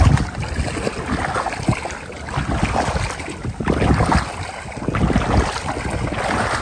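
Wind buffeting the microphone outdoors, with irregular rustling and knocking noises.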